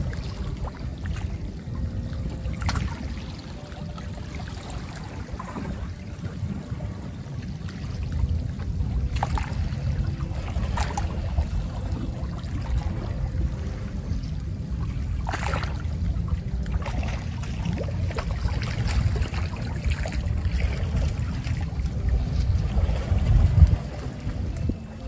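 Wind buffeting the microphone as a low, fluctuating rumble, with a few short sharp clicks scattered through.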